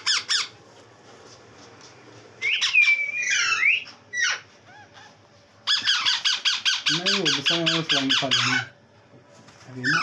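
Young Alexandrine parakeet squawking: a few harsh calls that slide in pitch, then a rapid run of harsh squawks, about seven a second, for about three seconds.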